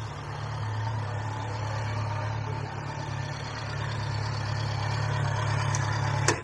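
Motorcycle engine idling steadily with a low, even note.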